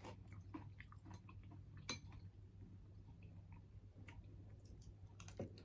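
Faint chewing of food: scattered soft mouth clicks and smacks, one sharper about two seconds in, over a low steady hum.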